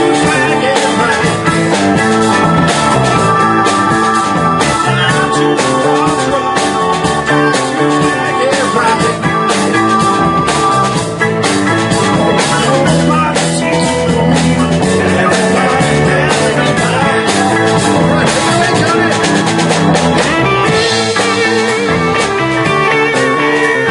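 A live rock band playing electric guitar, bass and keyboard over a drum kit, with a steady beat.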